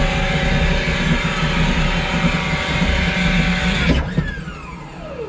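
BAC Strikemaster jet shutting down, heard from inside the cockpit: a steady whine over low noise that cuts off sharply about four seconds in, followed by a falling whine as the jet's spinning machinery winds down.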